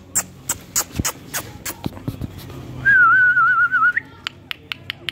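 A wavering whistle, held for about a second about three seconds in, rising sharply as it ends; it is the loudest sound here. Before it, a run of quick, evenly spaced high squeaks, about three or four a second, thins out within the first two seconds.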